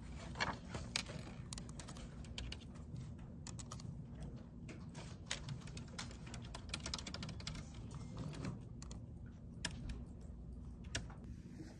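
Typing on a computer keyboard: quick, irregular key clicks over a steady low hum.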